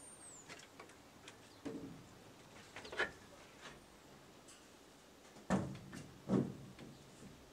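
Sparse light knocks and clicks, with a louder knock about three seconds in and two more near the end.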